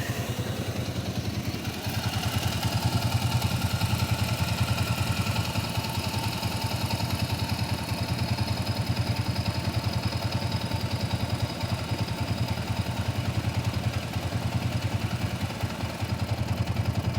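Yamaha Raptor 700R's single-cylinder four-stroke engine idling steadily, a fast, even chugging from the exhaust.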